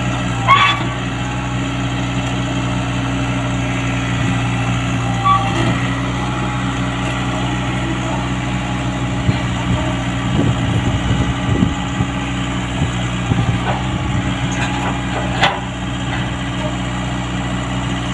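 Komatsu PC75UU mini excavator's diesel engine running steadily as it crawls up steel loading ramps onto a truck bed. Its tracks knock and clank on the ramps now and then: a sharp knock about half a second in, a rougher stretch in the middle, and another knock near the end.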